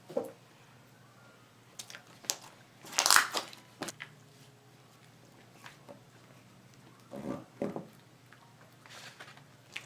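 Hands kneading and stretching fluffy slime: irregular squishing sounds, loudest about three seconds in.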